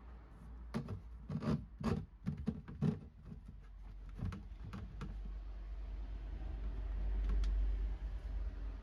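A run of about a dozen irregular light knocks and rubbing clicks of hand work with small parts over the first five seconds, then a steady low rumble that grows louder near the end.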